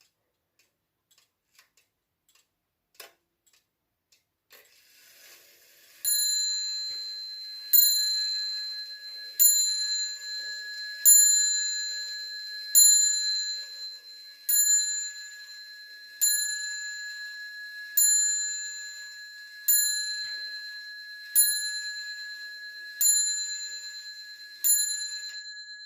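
1974 Hermle cast-iron wall clock striking the hour on its bell: twelve evenly spaced strokes about 1.7 s apart, each ringing on and fading before the next, after a faint whirr as the strike train starts.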